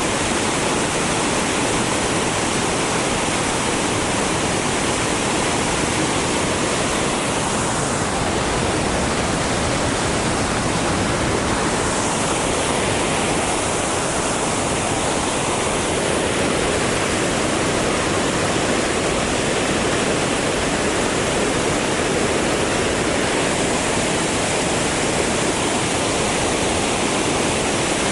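Yudaki waterfall's heavy flow of water crashing down: a loud, steady rush that never lets up.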